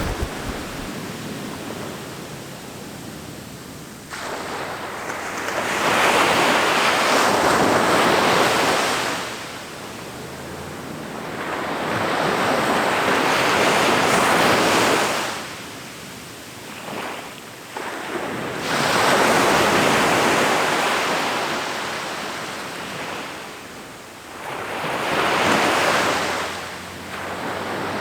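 Ocean waves breaking and washing up onto a beach, rising to a loud rush and falling back four times, roughly every six to seven seconds.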